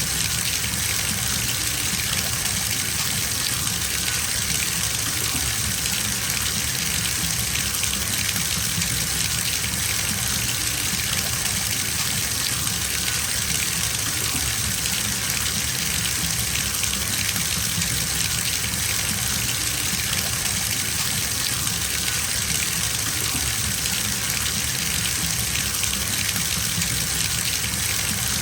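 Water running from a tap into a filling bathtub: a steady gushing splash that doesn't change.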